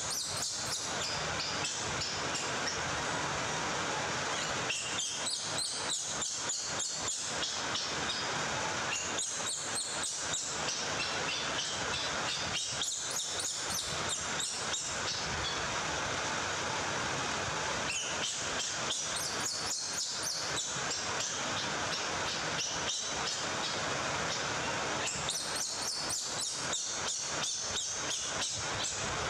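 A young macaque screaming for food in repeated shrill, pulsing bouts of a few seconds each, about six times, over a steady background hiss.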